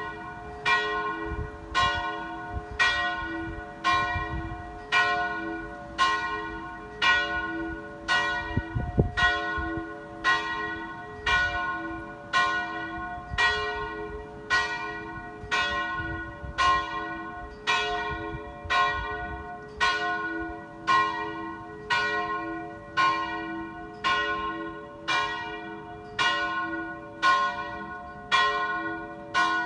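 A single church bell, thought to date from the 1700s, ringing the Saturday-evening helgmålsringning that marks the start of the weekend's holy day. Its clapper strikes evenly about once a second, and each stroke's hum carries over into the next. There is a brief low thump about nine seconds in.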